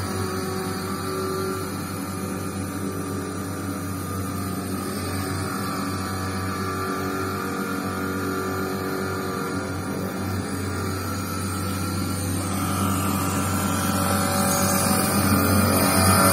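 HKI 4025 CNC milling machine running a program with its door closed: a steady hum of the spindle and axis motors, getting louder over the last few seconds.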